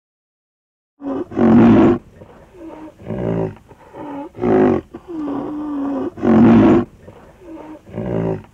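Repeated loud, rough calls from a large animal, one every second or so, starting about a second in; one call near the middle is held longer on a steady pitch.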